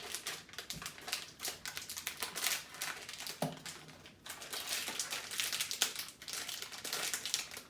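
Small plastic mystery-toy bag crinkling and crackling as it is torn open, a dense run of rapid crackles with a brief lull about four seconds in.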